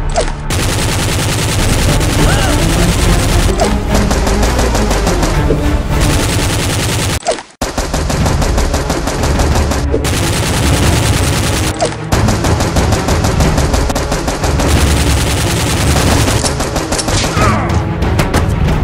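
Automatic gunfire sound effects in long, rapid bursts over music, with short breaks about seven and twelve seconds in.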